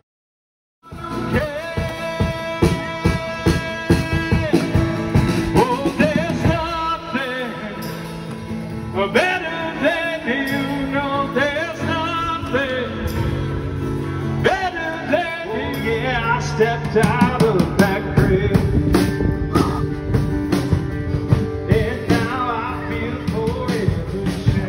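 Rock-and-roll music with singing, starting after a split second of silence.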